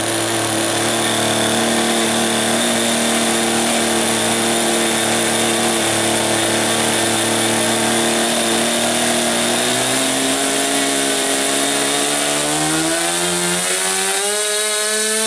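SuperTigre X25 4 cc two-stroke glow engine running, freshly started after many years unused and still warming up. It holds a steady buzzing speed, then its pitch climbs steadily over the last five seconds or so as it speeds up.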